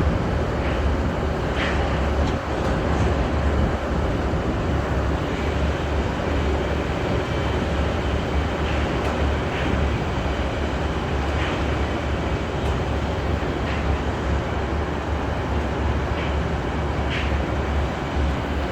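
Large engine running steadily with a deep low rumble, with a few faint knocks over it.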